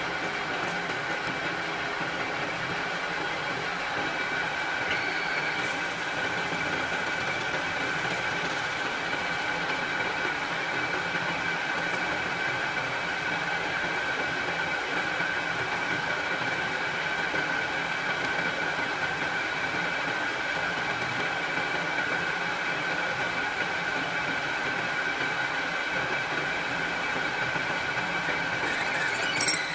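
Metal lathe running steadily while a twist drill in the tailstock bores into the spinning workpiece, its spindle and gearing giving an even hum with a steady high whine. One sharp click near the end.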